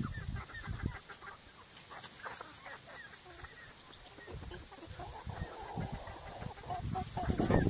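Chickens in a backyard flock clucking: short, soft calls scattered throughout, over a steady high-pitched hiss.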